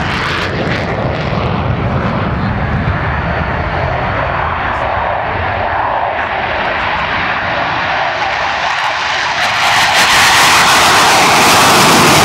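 Military jet aircraft engine noise, an even roar that eases after the start and swells loud again about three-quarters of the way through.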